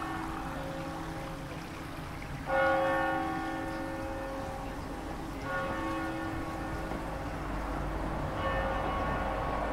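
Church bell tolling slowly: three strokes about three seconds apart, the first the loudest, each ringing on into the next.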